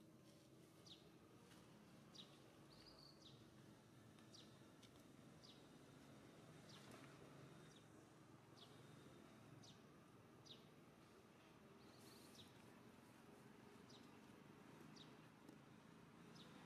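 Near silence: faint forest ambience with short, high chirps repeating about once a second.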